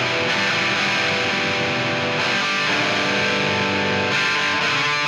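Hardcore punk recording: fast, loud band music led by distorted electric guitar, at a steady level throughout.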